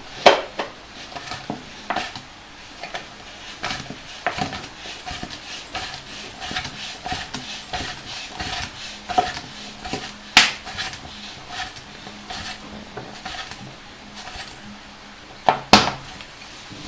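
A ball valve being screwed onto the threaded neck of a plastic water bottle: light clicking and rubbing of the threads with a few sharper knocks, two of them close together near the end.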